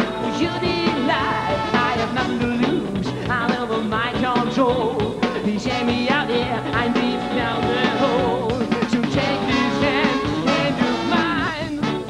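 Live funk-rock band playing, with drums and bass guitar under it.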